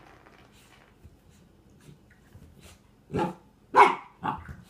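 A nine-week-old Doberman puppy barks three short times near the end, the middle bark the loudest.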